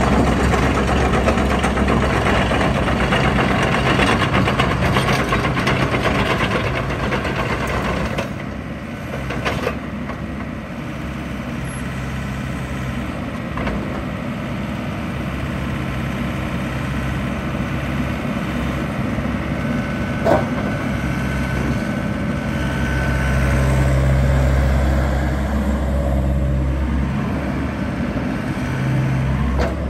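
Diesel engine of an XCMG XE60DA midi excavator running, with a rattling clatter over it for the first eight seconds or so while the machine tracks into place. After that the engine runs more steadily, swelling and easing in level as the boom, arm and bucket are worked.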